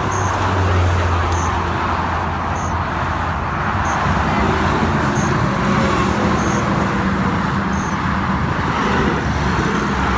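Steady rush of freeway traffic going past at speed, with a deeper low hum from a passing heavy vehicle in the first few seconds.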